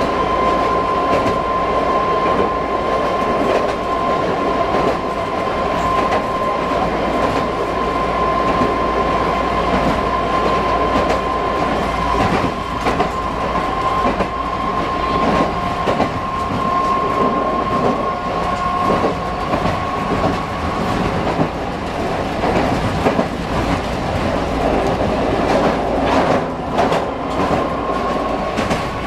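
Manyosen tram running along the track, heard from inside the car: a steady rolling rumble with a held whine throughout most of it, and now and then a click from the wheels over the rail.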